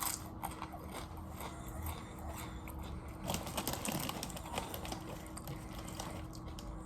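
Someone crunching and chewing chips with dip, a run of irregular crisp crackles, busiest about halfway through. A faint steady hum lies underneath.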